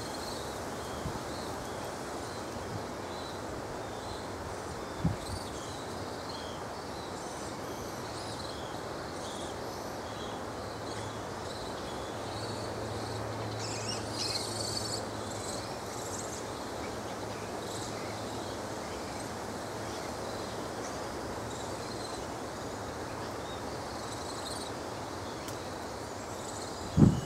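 Outdoor ambience: a steady background hiss with scattered faint high chirps, which grow denser about halfway through. A faint low hum runs through the middle, and there is a soft knock early on and a louder one at the very end.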